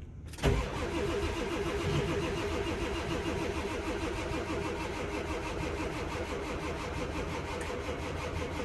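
Ford 7.3 Powerstroke V8 diesel cranking on the starter without catching, a fast, even pulsing that begins suddenly about half a second in. It is a cold no-start: the batteries are run low and the glow plugs are inoperative.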